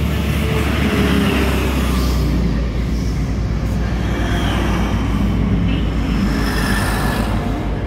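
Grand Central Class 180 diesel multiple unit moving past along the platform: a steady low engine drone under the rumble of wheels on the rails, easing slightly near the end.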